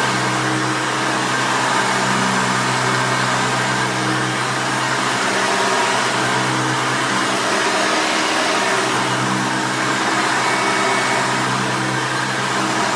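1989 Hoover Elite 350 vacuum cleaner running steadily, its motor humming under a continuous rush of suction air.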